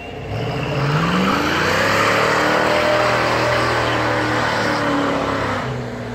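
Classic Ford Mustang's engine accelerating hard, rising quickly in pitch over the first couple of seconds and then held at high revs. The sound falls away sharply near the end as the car backs off or moves off.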